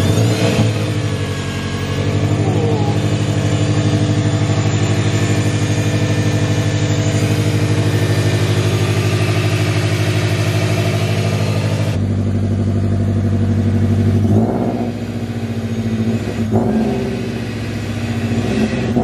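The supercharged Scion FR-S's 2.0-litre flat-four has just started and is running at a steady fast idle. About twelve seconds in, the idle drops, and the engine is then given two light revs near the end.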